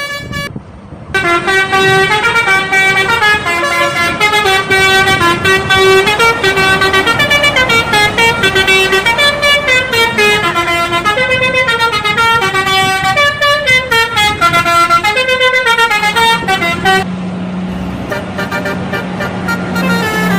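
Bus telolet horn, a set of tuned air horns, playing a fast stepping melody of short horn notes for about fifteen seconds. Near the end the melody stops and a low steady drone carries on.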